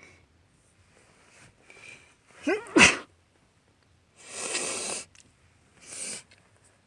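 A woman's allergy sneeze: quick catching in-breaths, then one loud sneeze a little under three seconds in. It is followed by two sniffles, a long one then a short one.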